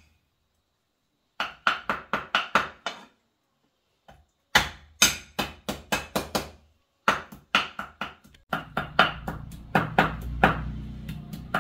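Cleaver chopping on a round wooden chopping block, in quick runs of about four strokes a second broken by two short pauses. A low steady background sound comes in about two-thirds of the way through.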